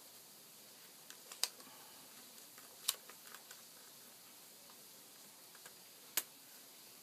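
Scattered sharp clicks and taps of a small Phillips screwdriver and hands on the opened netbook's plastic case, a few close together about three seconds in and one louder click near the end.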